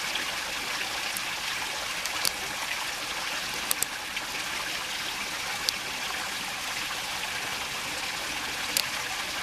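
Shallow creek running steadily, swollen by recent rain, with a few faint short ticks.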